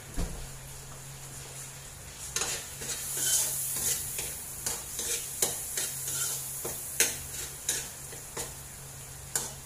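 Garlic and onion sizzling in butter in a stainless pot, with a steady hiss. From about two seconds in, a metal utensil stirs and knocks against the pot in irregular clinks. A low steady hum runs underneath.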